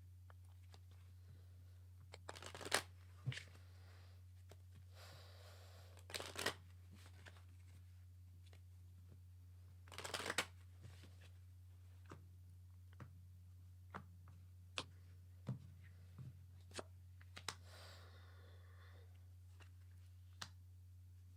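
Tarot cards being shuffled in a few short bursts, followed by scattered light ticks and taps as cards are handled and laid down, over a steady low electrical hum.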